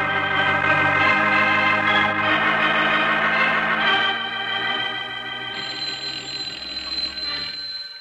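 Organ music bridge: a few held chords that change twice and then fade. About five and a half seconds in, a telephone bell starts ringing, lasting about two seconds.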